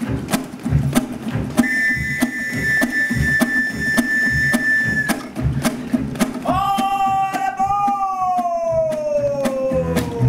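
Acoustic band music from ukuleles, double bass and percussion playing a steady, driving rhythm. A high note is held for a few seconds, then a long note slides slowly down in pitch through the second half.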